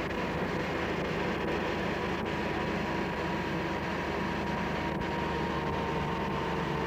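An off-road 4x4 engine running steadily, with a thin steady whine over the hum.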